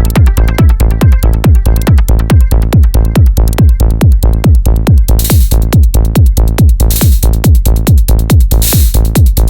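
Live hardware techno: a Roland TR-8S drum machine kick on a fast steady beat, about four hits a second, under sustained Korg Electribe synth and sampler tones. A hissing noise swell comes in around the middle and again near the end.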